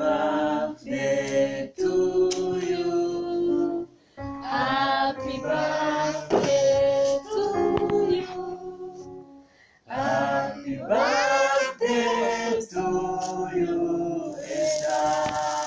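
A song sung by several voices, women's voices prominent, in held phrases with short pauses. Near the end a high fizzing hiss starts as a sparkler candle on the cake catches light.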